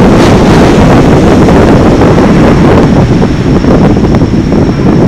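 Strong wind buffeting the camera's microphone: a loud, steady rumbling noise.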